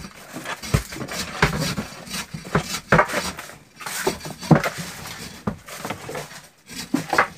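Hilsa fish being shifted by hand in a fish box: irregular knocks, clatters and wet slaps of fish against each other and the box.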